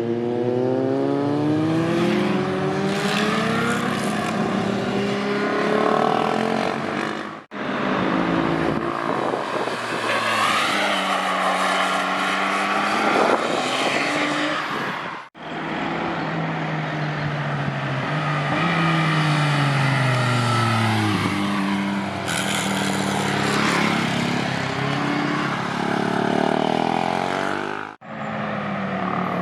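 Motorcycle engines revving and accelerating, their pitch climbing and dropping through gear changes, in several separate clips that cut off abruptly three times.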